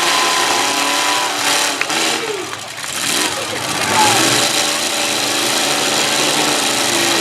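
Demolition-derby truck engines revving hard, pitch rising and falling as they push. The sound dips briefly about two and a half seconds in, then surges louder about a second later.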